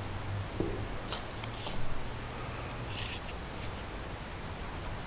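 A few short scratchy handling noises, clustered in the first three seconds, as the camera is moved and set down, over a steady low hum.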